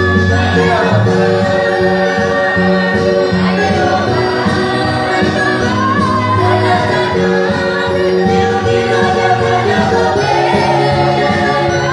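A group of women singing a gospel song together in harmony, unaccompanied, with long held notes.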